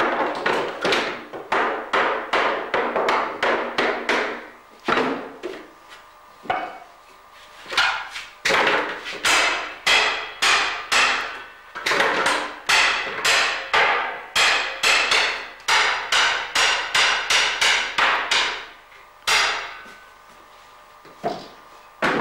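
A cooper's hammer striking the iron hoops of a wooden herring barrel, driving them tight, in quick ringing blows about three a second. There are two long runs of blows with a short lull between them, and the hammering stops near the end.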